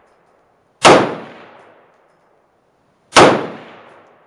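Two shots from a Smith & Wesson M&P15T AR-15 rifle in 5.56 fitted with a flash-enhancer muzzle device, a little over two seconds apart. Each shot is followed by a long echo that dies away in the enclosed indoor range.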